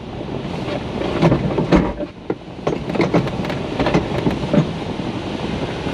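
Airflow rushing through a glider cockpit, with irregular clunks and rattles as the pilot works the landing-gear lever; the undercarriage is not coming down.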